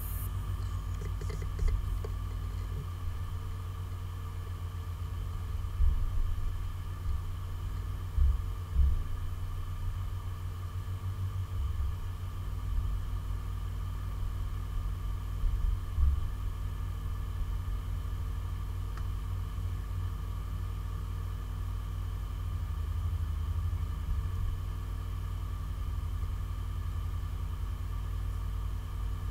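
Western Digital WD5000AURX 5,400 RPM 3.5-inch hard drive running at full speed: a steady hum with a faint constant whine, broken by a handful of short low thuds.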